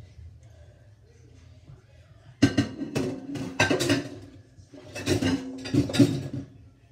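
Dishes clattering against each other and a stainless steel sink as they are washed by hand: two bursts of knocks and clinks with some ringing, starting about two and a half seconds in.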